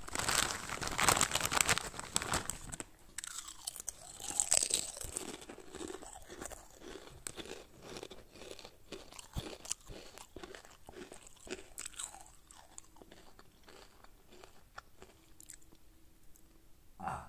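A person chewing crunchy food, with many quick crackling crunches, densest and loudest over the first five seconds, then sparser and quieter.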